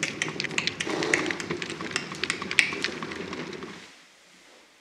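Horse-drawn carriage arriving: a horse's hooves clopping in quick irregular clicks over a low rumble of wheels, dying away a little before four seconds in.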